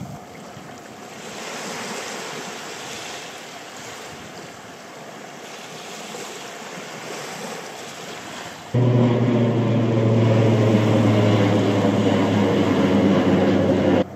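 Wind and surf noise for the first eight or nine seconds. Then a much louder, steady droning hum with many overtones starts abruptly, like an engine, holds for about five seconds and cuts off suddenly.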